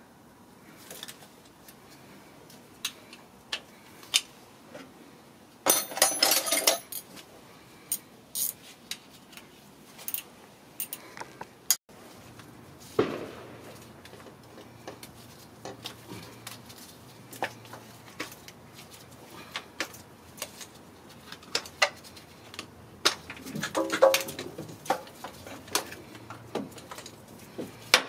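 Hand tools and small metal engine parts clicking and clinking as parts are taken off an engine, with a denser stretch of clattering about six seconds in and again near the end.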